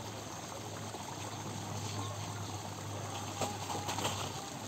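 Steady rushing noise with a low steady hum under it. In the last second or so come a few light clicks and knocks as a mountain bike rolls down the rocky trail toward the microphone.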